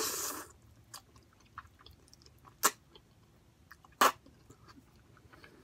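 A brief slurp of spicy noodles at the start, then chewing with a few sharp mouth clicks.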